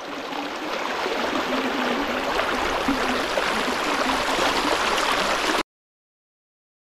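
Shallow rocky creek running over stones and gravel, a steady rush of water that cuts off suddenly about five and a half seconds in.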